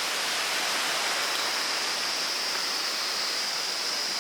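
Fast-flowing river rushing, a steady noise loud enough that speech has to be shouted over it, with a thin steady high tone above it.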